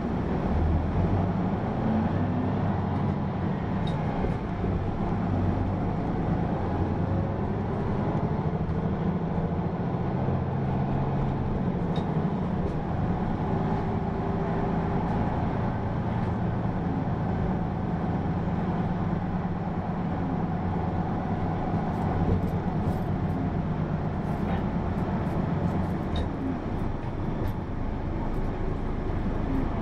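Diesel engine and drivetrain of a Hino PA-KR234J1 city bus heard from inside the cabin while it is under way: a steady low engine hum whose pitch rises and falls slowly with the driving, over road noise. A few light rattling clicks come later on.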